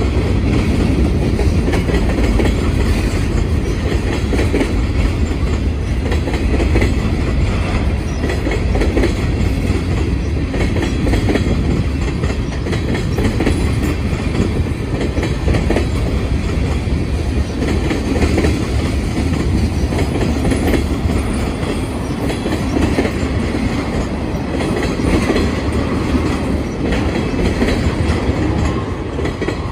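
Freight train rolling past close by: a loud, steady rumble and clatter of steel wheels over the rails as covered hoppers, tank cars and autorack cars go by.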